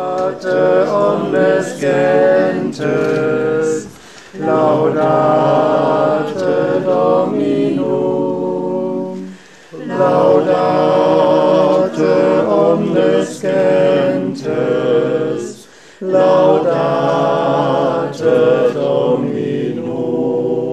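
A group of voices singing a song together without accompaniment, in four long phrases with short breaks between them.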